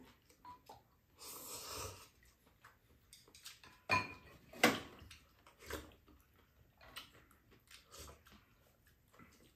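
Eating noises at a meal of japchae noodles: a breathy slurp about a second in, then spoons and chopsticks clicking and clinking against bowls, with a ringing clink about four seconds in and a sharper knock just after it.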